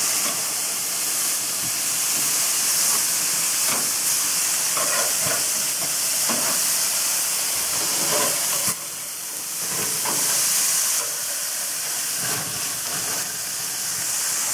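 Steaks sizzling on a Weber Genesis propane grill: a steady hiss, with a few light clicks of metal tongs as the steaks are turned.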